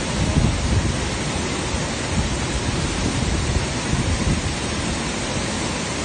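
Waterfall pouring into its plunge pool, heard close up: a steady, loud rush of falling water with a deep, uneven rumble underneath.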